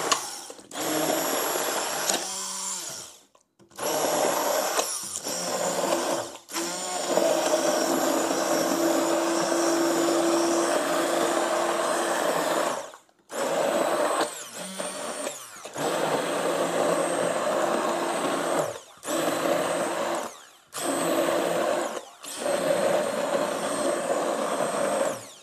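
1200 W electric immersion (stick) blender running through a thick mix of roasted vegetables and broth as it purees them into soup. It runs in repeated bursts with short stops between them.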